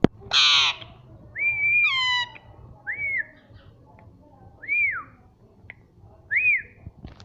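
Indian ringneck parrot giving one harsh squawk, then a long whistled note that drops at the end, followed by three short rising-and-falling whistles spaced a second or two apart. A sharp click comes right at the start.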